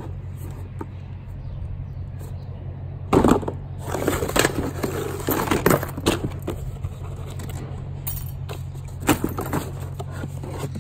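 Plastic containers and packaged items being handled and shifted about in a cardboard box: irregular knocks, plastic clatter and rustling, loudest about three seconds in and again near nine seconds, over a steady low hum.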